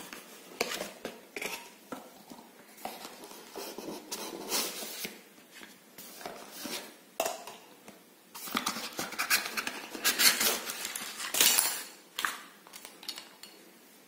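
Hands unpacking a cardboard box and lifting out a plastic camera, charger and mounting parts: irregular scraping, rustling and light knocks of cardboard and plastic, busiest in the second half.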